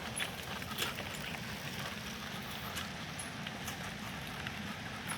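Bicycle being ridden over a rough track: a steady low rumble, probably wind on the microphone, with a few scattered rattles and clicks from the bike.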